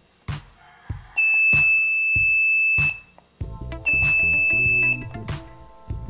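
Small electronic buzzer on a two-transistor latch-switch circuit giving a loud, steady high-pitched beep about a second in that lasts about a second and a half, then a second beep of about a second. It is switched on and off with the circuit's two push buttons. Background music with a steady beat plays throughout.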